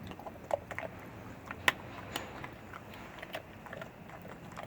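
A dog chewing a baked dog treat: irregular crunches and clicks of teeth, with one sharp crack about a second and a half in.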